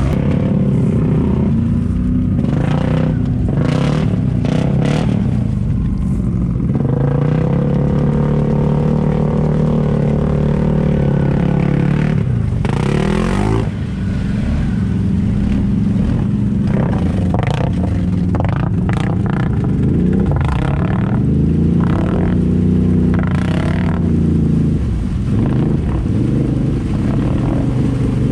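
ATV engines revving hard through deep mud and water, the pitch climbing and falling as the throttle is worked, with muddy water splashing and slapping against the machines.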